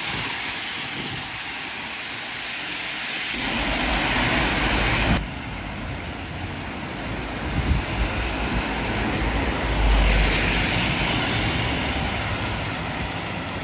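Road traffic going by on a wet street: a steady hiss of tyres with a low rumble, swelling twice as vehicles pass, once about four seconds in and again near ten seconds.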